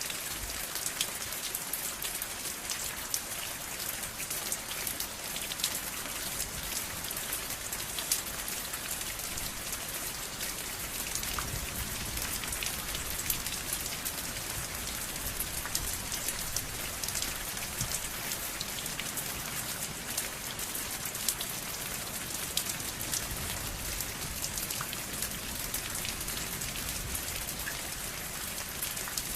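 Steady rain falling, an even hiss with many individual drops ticking sharply through it.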